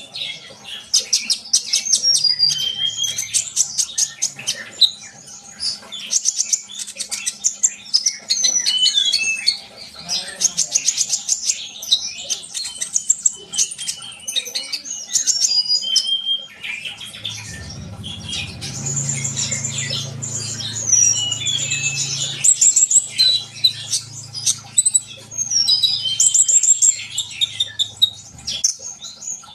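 Kolibri ninja (sunbird) singing continuously and vigorously, in 'gacor' form: rapid high chirps, short rising and falling whistles, and fast buzzy trills. From a little past halfway to near the end, a low steady hum runs beneath the song.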